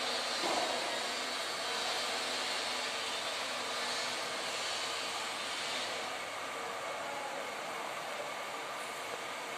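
Steady workshop background noise: an even machine-like whoosh with a faint steady hum running through it, easing slightly about six seconds in.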